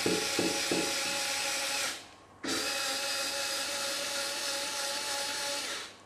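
Xiaomi Mijia 3.6 V cordless electric screwdriver (MJDDLSD002QW) running with a steady motor whine as it turns a small screw in a wooden block. It runs in two bursts: it stops about two seconds in, starts again half a second later and stops near the end, with a light knocking about three times a second during the first second.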